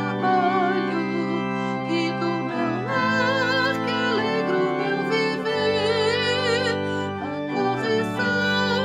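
A hymn sung to organ accompaniment: a singing voice with a wide vibrato over held organ chords.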